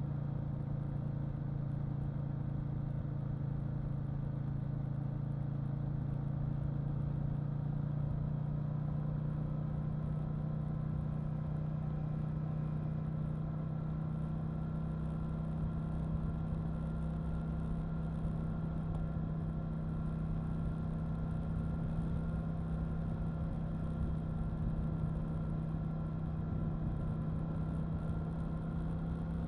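KTM 890 Duke R's parallel-twin engine running steadily under way, its pitch slowly rising a little as it holds a light throttle, with a low rumble underneath.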